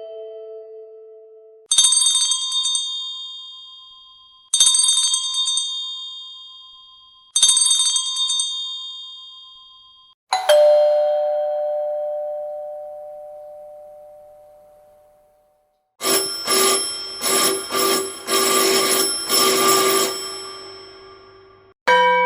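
A run of different doorbell sound effects. First the end of a ding-dong chime dies away. Then a high electronic chime plays three times about three seconds apart over a steady hum-like tone. A single two-note chime strike follows and rings out for about five seconds, then about four seconds of rapid chime strikes, a short pause, and another chime pattern starting near the end.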